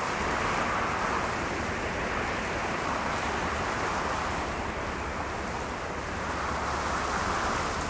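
Steady rain falling, an even hiss that swells and eases gently.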